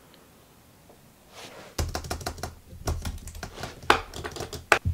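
Irregular clicks and taps of fingers working small buttons, starting about two seconds in, with the sharpest clicks near the end.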